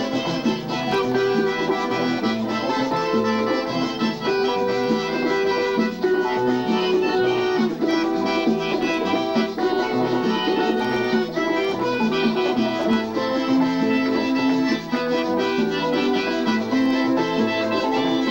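Live band music with an accordion playing the lead melody over the band's accompaniment.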